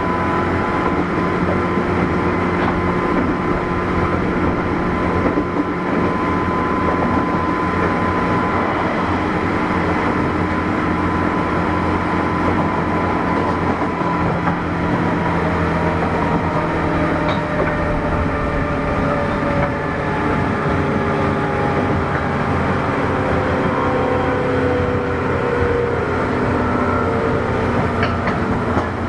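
JR 201 series electric train running, heard from inside a MoHa 201 motor car: a steady rumble of wheels on rail with the thyristor chopper's whining tones over it. In the second half, some of the tones glide gradually in pitch.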